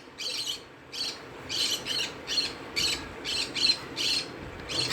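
Bird calls, a series of short, raspy squawking chirps repeating about every half second with brief gaps between them.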